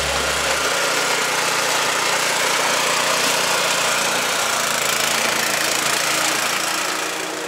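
Walk-behind tractor's small single-cylinder engine running steadily as it tows a loaded trailer, a dense rattling engine noise.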